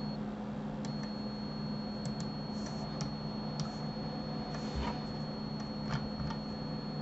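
A handful of short, scattered computer mouse clicks, about eight in all, over a steady low electrical hum and a thin high whine from the recording setup.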